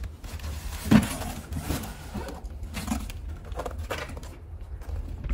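Cardboard toy boxes being handled and shifted about, rustling with a few scattered knocks, the sharpest one about a second in.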